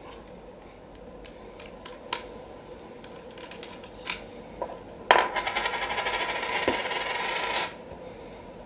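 A few light clicks of handling, then a small metal object dropped onto a hard surface about five seconds in, clattering rapidly for about two and a half seconds before it settles and stops abruptly.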